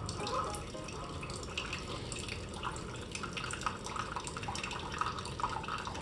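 Keurig single-serve coffee maker brewing: a thin stream of coffee pouring and spattering into a ceramic mug over the machine's steady low hum.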